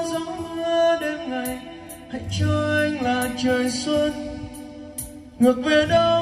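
A man singing a pop song into a microphone over a backing track with a drum beat, amplified through RCF PA loudspeakers.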